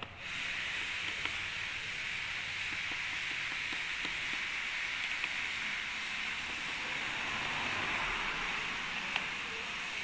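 Steady hiss, with a few faint single clicks and taps from a precision screwdriver working the bottom-cover screws of a laptop.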